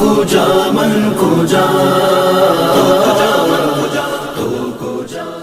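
Wordless a cappella vocal backing of an Urdu naat: several layered voices holding long chanted notes, with no instruments. It fades out near the end.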